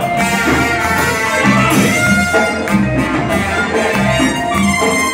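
Loud Latin dance music with brass and a steady beat.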